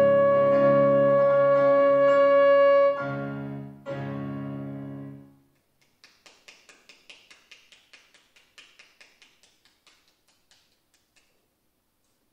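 Trombone holding a high final note over piano chords; the trombone stops about three seconds in and the piano's last chord rings away over the next two seconds. Then faint scattered clapping.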